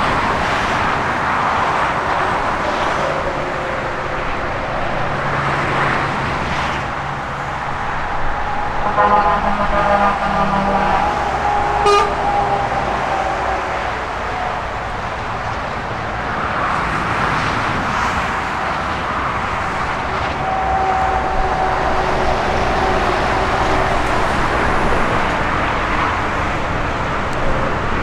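Steady road traffic noise, with a vehicle horn sounding briefly about nine seconds in and a sharp click a few seconds later.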